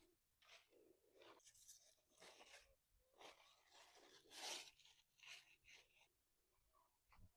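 Faint, irregular rustling and crunching, about a dozen short scrapes, the loudest a little past the middle.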